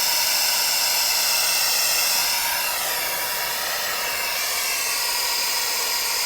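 Plumber's gas torch burning with a steady hiss as it heats a copper pipe fitting while solder flows into the joint; faint whistling tones in the hiss shift in pitch about halfway through.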